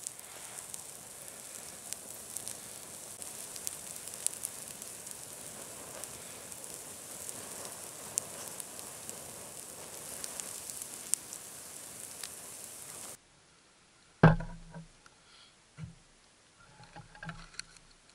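Campfire of dead spruce branches crackling and popping over a steady hiss. It cuts off abruptly about thirteen seconds in, followed by one loud thump and a few lighter knocks and clicks of food cans being handled.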